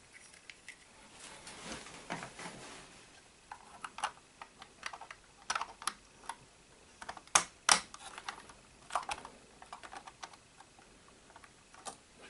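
Small plastic and chrome-plated parts of a Haynes model V8 engine kit clicking and tapping as they are handled and pressed into place on the engine, with two sharper clicks about seven and a half seconds in.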